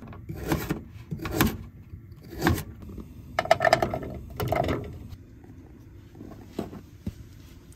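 A knife chopping carrots on a plastic tray, a few separate knocks, then carrot slices dropped into a nonstick pan, landing with clustered knocks that ring briefly. Quieter after about five seconds.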